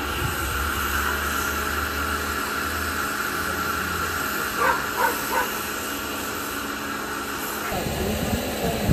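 A dog gives three short, quick barks about halfway through, over a steady hiss with a low hum.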